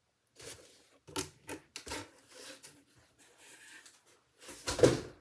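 Packaged craft supplies being handled: scattered light taps, clicks and rustles, with one louder knock and rustle near the end.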